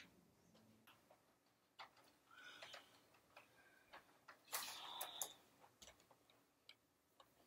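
Faint, scattered ticks and taps of someone moving through a quiet room carrying a plastic toy blaster, with a louder rustle about four and a half seconds in.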